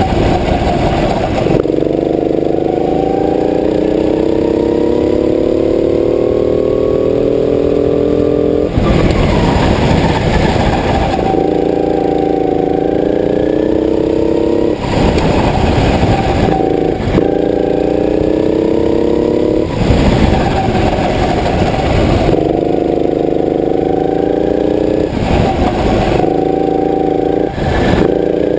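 Go-kart engine heard from on board, its pitch climbing steadily as the kart accelerates along each straight. About every five seconds, one to two seconds of rough, noisy sound break in where the kart slows for the corners.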